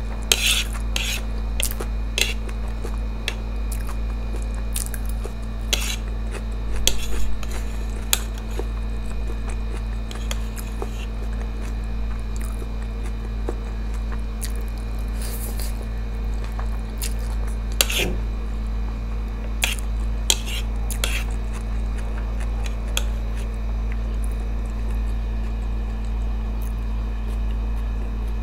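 Metal chopsticks clicking and scraping against a plate while lifting masala Maggi noodles, with scattered sharp clicks over a steady low hum.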